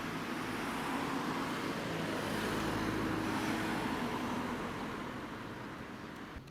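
Road vehicle running by, a steady engine and tyre noise that fades away near the end.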